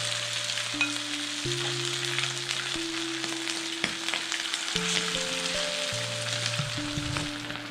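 Hot oil sizzling and crackling as batter-coated pieces of marinated chicken fry in a pan, with more pieces spooned in. The oil is at frying temperature. Soft background music with long held notes plays underneath.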